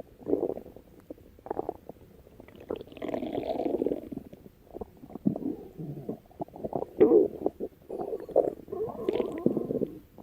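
Stomach growling: a run of irregular gurgling rumbles, with a longer one about three seconds in and the loudest ones around seven and nine seconds.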